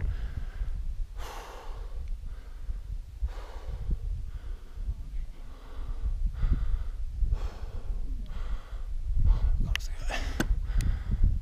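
A hiker's heavy breathing, about one breath a second, over low wind rumble on the microphone.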